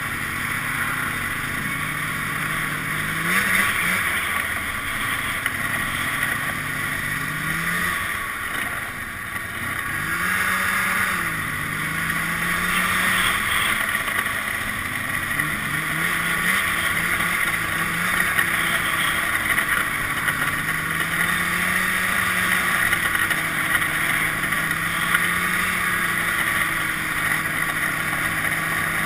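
Arctic Cat two-stroke snowmobile engine running under way on the trail, its pitch rising and falling again and again as the throttle is worked, over a steady rushing noise.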